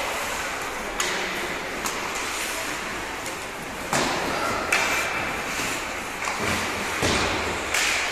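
Ice hockey play in an indoor rink: a steady wash of skates and movement on the ice, broken by a few sharp clacks and knocks of sticks, puck and boards, about one, four and five seconds in and near the end, with brief shouts.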